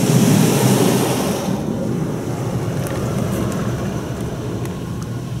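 Car wash rinse water spraying onto the car, heard from inside the cabin, cutting off about a second and a half in. A quieter steady low noise remains, with a few light ticks.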